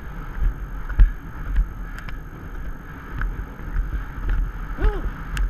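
Horse's hoofbeats thudding dully on a sandy track, with wind rushing over a helmet camera's microphone and a few light clicks of tack. A short rising-and-falling voice call near the end.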